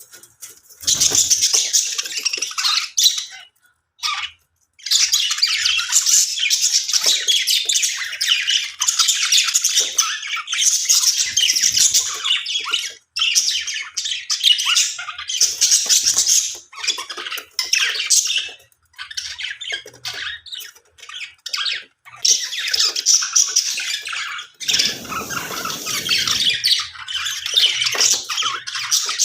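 A group of budgerigars chattering and squawking, a dense, continuous stream of high chirps and warbles with a few brief pauses.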